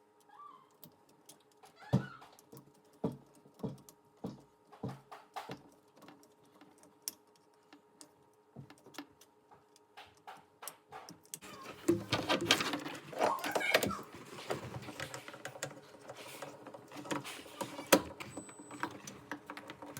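Hands working on dishwasher hose and cord connections: scattered small clicks and knocks, then busier rustling and scraping from a little past halfway.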